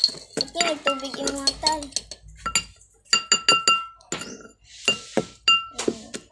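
A utensil clinking repeatedly against a dish while mixing, each hit ringing briefly at the same pitch. A voice is heard in the first couple of seconds.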